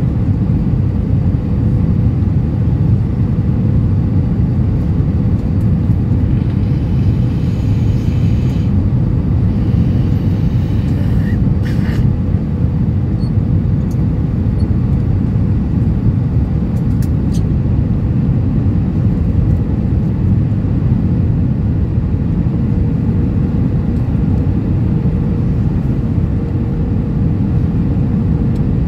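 Steady cabin roar of an Airbus A320-232 on final approach: airflow and its IAE V2500 engines, with a faint steady hum. A light click sounds about twelve seconds in.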